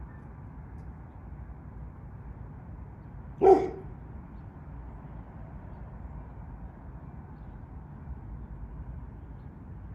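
A dog barks once, a single short loud bark about three and a half seconds in, over a steady low rumble.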